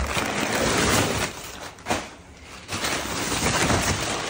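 Crumpled kraft packing paper crackling and rustling as it is pulled out of a cardboard box, in two spells with a short lull about two seconds in.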